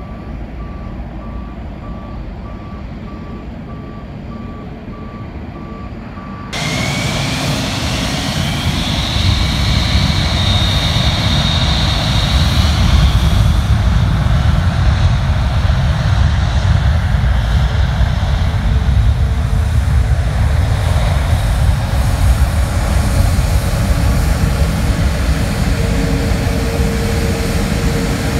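A faint distant jet rumble with a vehicle's reversing alarm beeping steadily; about six seconds in it switches to the loud, close jet engines of a taxiing British Airways Boeing 747 airliner, a deep steady rumble under a high whine that rises over a couple of seconds and then holds.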